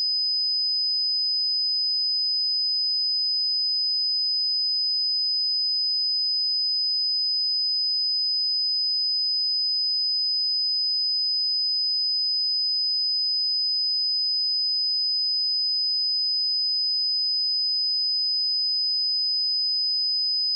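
Steady 5014 Hz sine-wave test tone: one pure, unchanging high-pitched tone, used for checking speakers and headphones.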